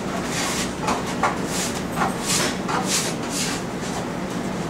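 A hand-held kitchen tool worked over a plate in quick rasping strokes, about three a second.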